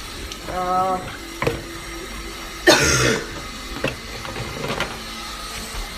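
A person coughs once, sharply, about two and a half seconds in, after a short hummed voice sound near the start. A few light knocks come before and after.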